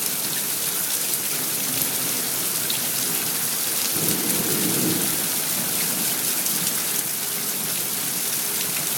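Steady rain falling and pattering on surfaces during a thunderstorm, with a brief low rumble about four seconds in.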